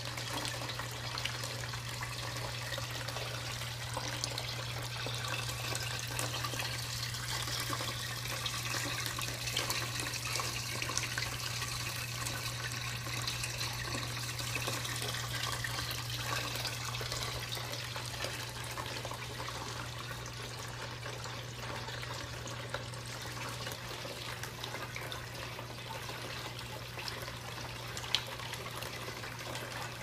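Homemade vortex water fountain running: a steady trickling rush of water swirling and draining through the centre hole of the glass cylinder into the sump basin below. A steady low hum runs underneath, and there is a single tick near the end.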